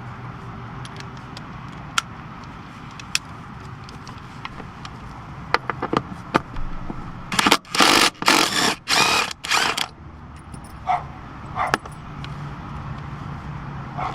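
Scattered sharp metallic clicks, then a run of short, loud rasping bursts about halfway through, from a ratchet wrench being worked on the stock seat's 14 mm bolts. A steady low hum runs underneath.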